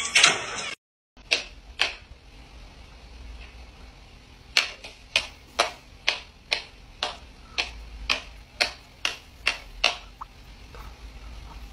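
A clock ticking, about two ticks a second with alternating stronger and weaker ticks.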